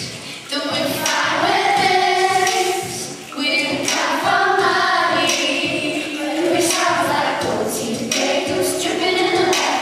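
Group singing with layered, choir-like voices holding long notes, briefly dropping away about half a second in and again about three seconds in.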